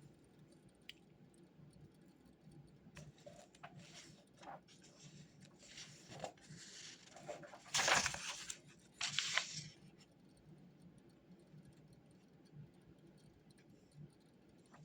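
Rustling and handling noises as study materials are moved about, with the loudest rustle about eight seconds in and a shorter one about a second later.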